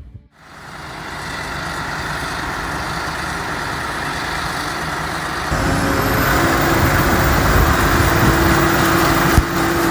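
Heavy vehicle's engine running steadily, getting louder about halfway through with a steady droning note added. There is one sharp knock near the end.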